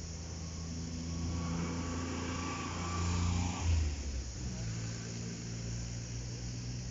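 A vehicle engine running steadily, swelling louder a little past the middle and then settling at a slightly higher pitch.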